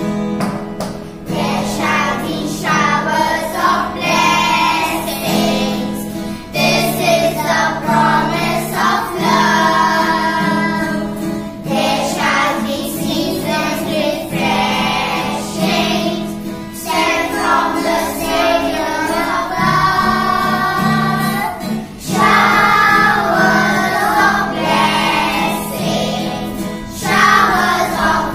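A small group of young girls singing a song together in unison over a strummed acoustic guitar accompaniment.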